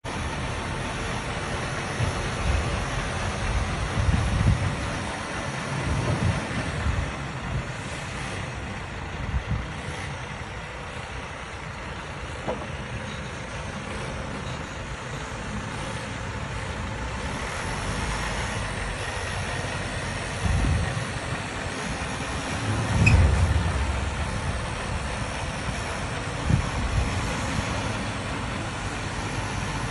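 IVECO T-Way tipper truck's diesel engine running steadily as the truck crawls over rough, uneven dirt, with a few low thumps along the way.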